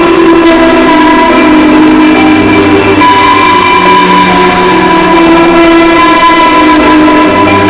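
Very loud wake-up alarm track: many sustained musical tones stacked over one another, the notes shifting every second or so without a break.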